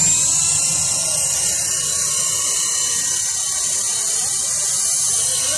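Toy radio-controlled helicopter's small electric motor and rotor blades running: a steady high whine over a low hum.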